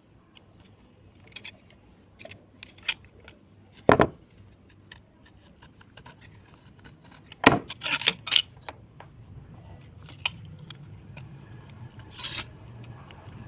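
Hard slate pieces being handled and scraped: scattered clicks and scratches, with two sharper knocks about four and seven and a half seconds in.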